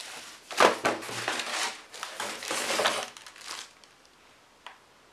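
Plastic mailer bag crinkling as it is handled and opened, with a couple of sharp crackles about half a second in. It settles to faint ticks after about three and a half seconds.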